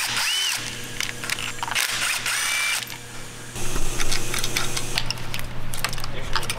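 Cordless drill-driver running in short bursts as it spins off the fuel-line fittings on a BMW diesel engine's fuel rail, with metal clinks as the parts come loose.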